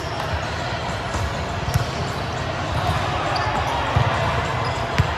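Volleyball ball impacts echoing in a large indoor gym: a few sharp slaps of hits and bounces, the sharpest near the end, over a steady hubbub of players' voices and court noise.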